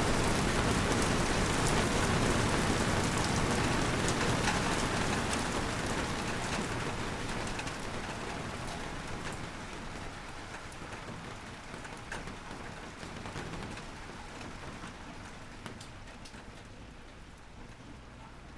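Rain falling steadily, a dense hiss with individual drops ticking, gradually fading out.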